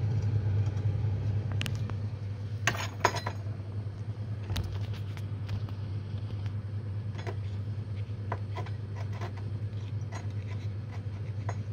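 Small clicks and taps of a ceramic crucible and wet filter paper being handled, with a cluster of sharper clicks about three seconds in, over a steady low hum.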